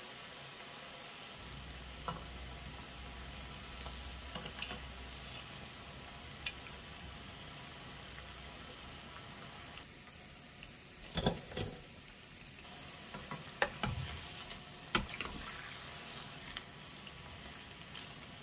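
Oil sizzling steadily as battered strips of vegan ham deep-fry in a pan, with a handful of sharp clicks and knocks. The biggest knocks come a little after ten seconds in and again around fifteen seconds.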